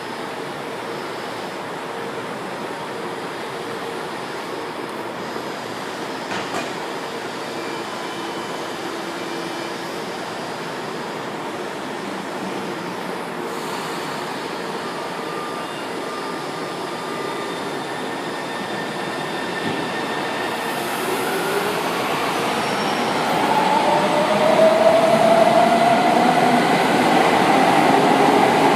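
São Paulo Metro train with a steady rumble. From about twenty seconds in it grows louder, and its electric traction motors give a whine that rises in pitch as the train speeds up.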